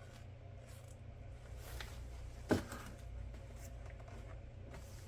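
Quiet handling of the box contents and paperwork, light rustling over a steady low hum, with one short sharp knock about two and a half seconds in.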